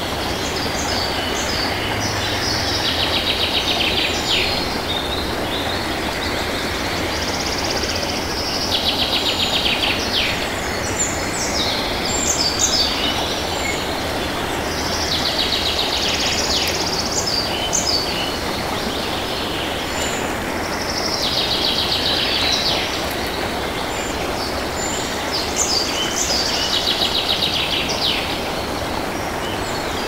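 Waterfall rushing steadily, with a bird singing a high trilling phrase over it about every six seconds, five times in all.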